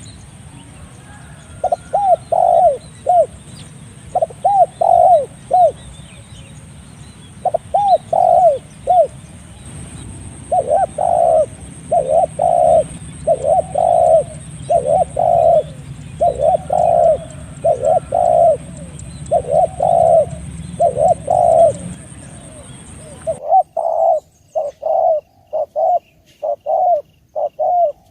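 Spotted dove (tekukur) cooing: repeated phrases of three or four low, short coos, one phrase after another with brief gaps. A steady high hiss and a low hum lie under the calls and cut out abruptly near the end, while the cooing goes on over a quiet background.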